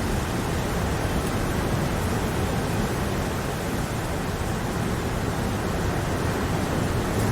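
Steady rain falling: a continuous, even hiss with a low rumble underneath and no distinct drops or breaks.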